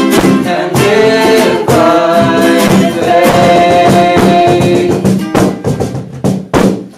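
Voices singing a children's worship song over strummed acoustic guitar. The singing stops about five and a half seconds in, and a last few strummed chords ring out and fade.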